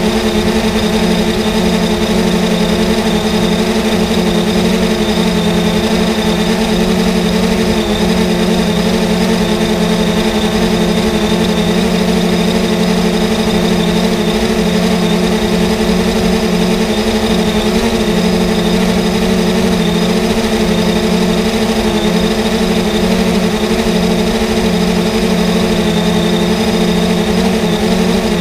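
3DR Solo quadcopter's four electric motors and propellers running steadily in flight, a loud, even hum with a constant pitch, picked up close by the camera mounted on the drone.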